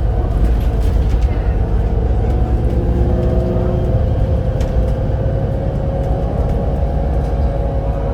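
Volvo B7RLE bus under way: a steady, heavy low rumble from the engine and drivetrain, with thin whining tones running over it.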